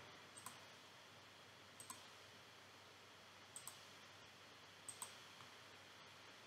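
Computer mouse button clicking, four quick double clicks spread a second or so apart over faint room hiss.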